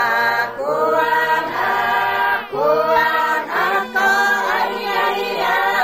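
Bunun a cappella singing: several voices chanting together in held notes, in short phrases of about a second each.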